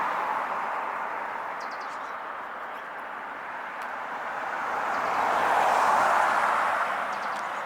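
A vehicle passing on a nearby road: tyre and engine noise that fades, then swells to a peak about six seconds in and fades again. A bird gives a couple of faint short chirps.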